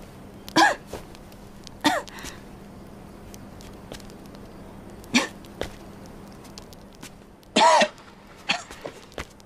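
A person coughing in short fits with pauses between them, about five in all; the longest and loudest comes near the end.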